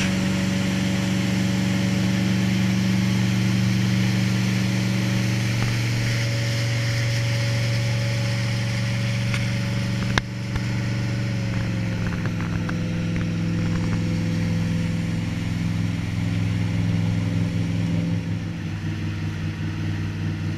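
Motorboat engine running steadily under way. Its pitch drops slightly about halfway through, after a sharp click, and the sound turns more uneven near the end.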